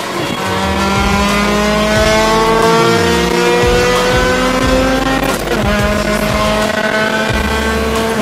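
Acura RSX Type S's 2.0-litre four-cylinder engine pulling under hard acceleration, heard from inside the cabin: the engine pitch climbs steadily, drops at an upshift about five and a half seconds in, then climbs again.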